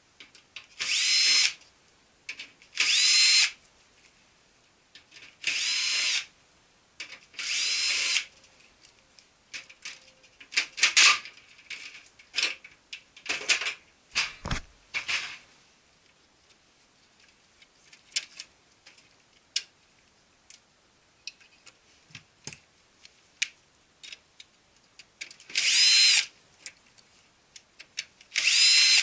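Cordless drill-driver turning screws in a copier's metal frame, its motor whining in six short bursts. Between the bursts come scattered clicks and knocks of screws and parts being handled.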